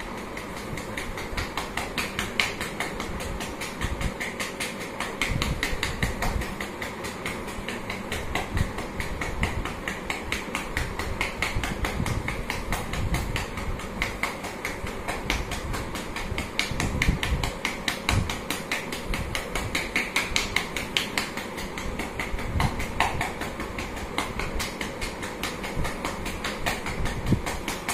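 Rapid, steady hand percussion on a patient's back: a continuous run of quick dull pats, chest physiotherapy meant to loosen secretions in the lungs.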